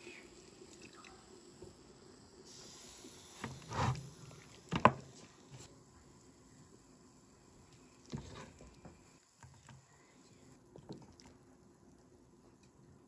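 A wooden spoon scooping beef and bones out of thick stew in a pot, with soft wet squelches, and a few short knocks about four to five seconds in as the meat is handled.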